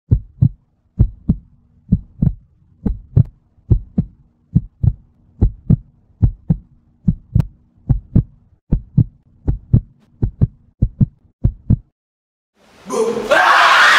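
Heartbeat sound effect: paired low thumps, about one beat a second, quickening slightly toward the end, over a faint steady hum. The beats stop just before the end, when a loud, dense wash of sound swells in.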